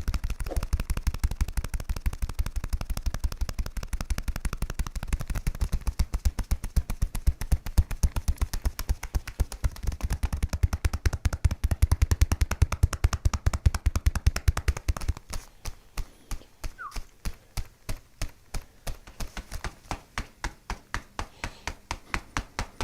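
Rapid, even percussive tapping on a person's body, about seven or eight strikes a second, slowing to about three a second some 15 seconds in.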